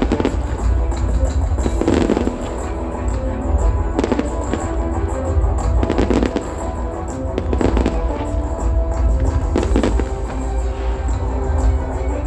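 Fireworks bursting in a display: a series of booms and crackles every second or two over a deep rumble, with music playing throughout.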